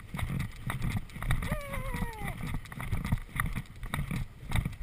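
A horse's hoofbeats on turf at speed: a steady rhythm of low thuds, with clicks from the tack and wind rumbling on the helmet camera. About a second and a half in, the rider gives a short drawn-out call that falls in pitch.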